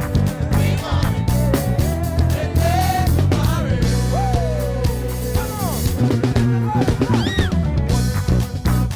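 Live church praise band playing an upbeat passage. A drum kit keeps a steady beat under heavy bass notes and guitar, with a melody line that slides up and down above them.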